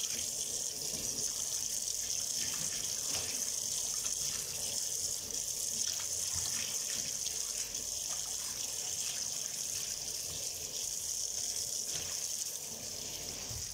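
Tap water running steadily into a stainless steel sink, splashing as a hand is rubbed and rinsed under the stream.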